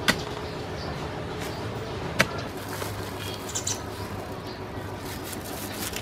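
Metal digging bar striking packed dirt: two sharp knocks about two seconds apart, over a steady background hiss.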